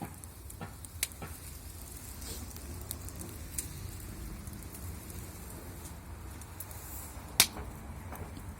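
Wood fire crackling in a fireplace, with scattered sharp pops; the loudest pop comes near the end.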